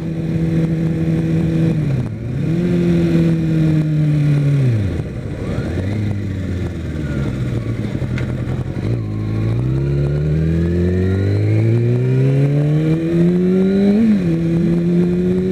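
Kawasaki Ninja ZX-6R's inline-four engine heard from the rider's seat while riding. It runs steady, then eases off and slows through the first half, then revs up in one long rising pull from about nine seconds in, drops sharply at an upshift near the end and climbs again.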